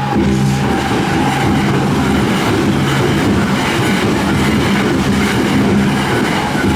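A Hankyu train passing over a level crossing, a loud rushing rattle of wheels on rails that drowns out the steady music heard around it.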